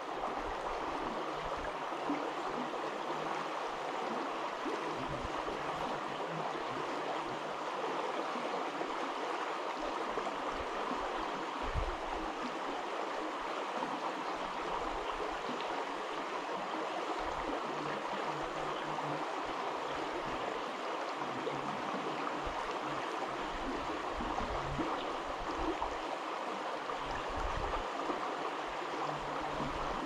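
Creek water running over a rocky gravel bed: a steady rush of flowing water, with a few brief low rumbles, the strongest about twelve seconds in.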